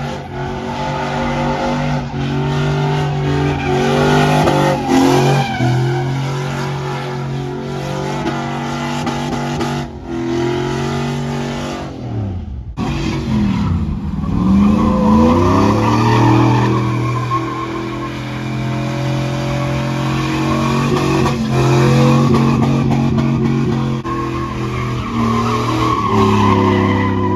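Truck engine revving hard with tyres squealing, with a brief drop in the noise about twelve seconds in.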